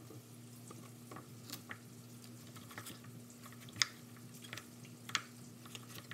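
Chef's knife cutting carrots on a wooden cutting board: irregular crunching cuts and knocks of the blade on the board, two sharper knocks about four and five seconds in, over a faint steady hum.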